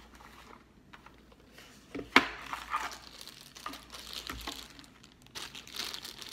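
A sharp click about two seconds in, then a clear plastic bag of charger adapter tips crinkling as it is pulled out of a small cardboard box and handled.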